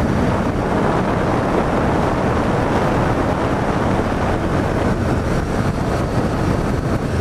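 Steady wind noise rushing over a GoPro microphone on a Yamaha FZ-07 motorcycle riding at speed, with the bike's running and road noise mixed in beneath.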